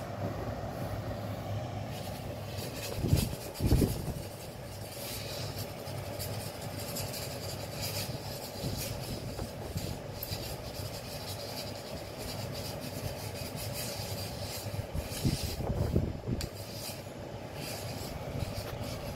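Scratching and scraping on a concrete floor as kittens play with a wooden stick dragged along it, over a steady background hum. Two louder dull bumps come about three seconds in and again near sixteen seconds.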